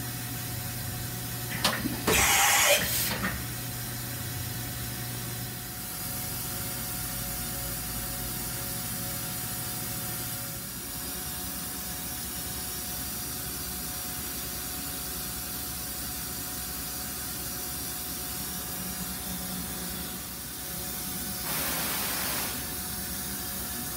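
A DMG DMC 1035 ECO CNC vertical machining centre running, with a steady machine hum. A sharp click and a loud hissing burst of about a second come about two seconds in, and a softer hissing burst comes near the end. A low hum drops out about halfway through.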